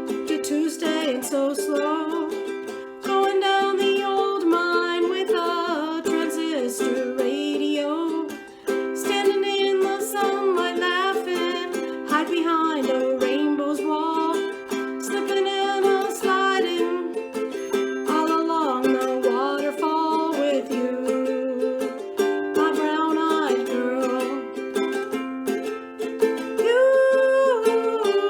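Music: a wavering melody line over steady held chords, with no words.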